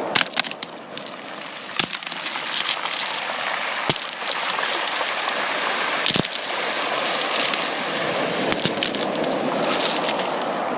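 Sea surf washing on the shore: a steady rush of water full of fizzing crackle, with a few sharper clicks standing out, about two seconds apart.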